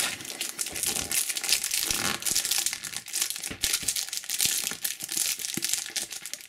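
Foil trading-card booster pack crinkling and crackling as it is handled in the hands.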